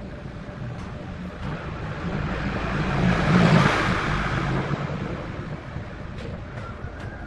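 A motor vehicle passing by: engine and road noise grow louder, are loudest about three and a half seconds in, then fade away.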